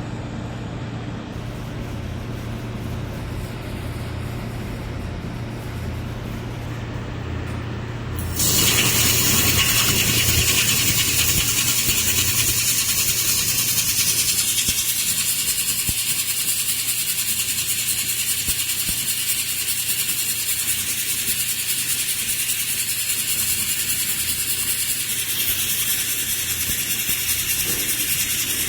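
Laser welding machine running with a steady low hum, then about eight seconds in a loud, steady hiss starts suddenly and holds as it welds a wide seam.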